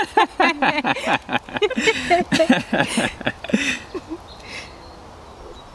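People laughing in quick repeated bursts for about four seconds, then dying away.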